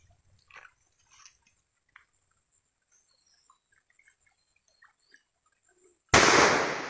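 Faint scattered clicks, then about six seconds in a single hunting-gun shot: sudden and loud, then dying away slowly.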